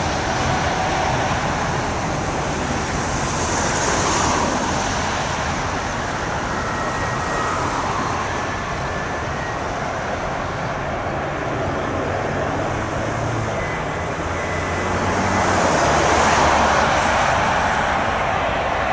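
Steady rushing noise of a jet airliner's engines on landing approach, mixed with road traffic. It swells about four seconds in and again near the end.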